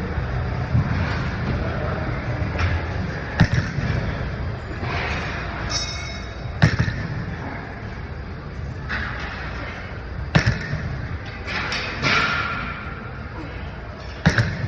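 Loaded barbell set down on the floor between deadlift reps: four sharp thuds, about one every three and a half seconds.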